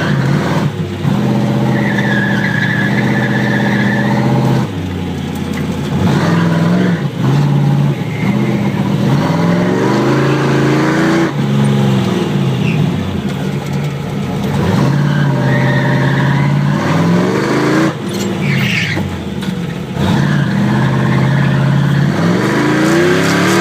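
Chevy Nova's engine heard from inside the car on an autocross run, revving up hard and dropping back again and again through accelerations, lifts and shifts. The tires squeal at times, most clearly a couple of seconds in.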